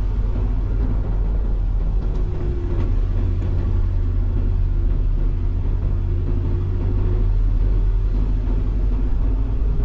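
Suzuki Jimny driving at steady speed: a continuous low engine and road rumble with a faint steady engine hum on top.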